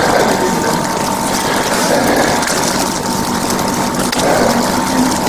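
Wet snow falling steadily onto an umbrella held just over the camera, a dense, even patter that does not let up.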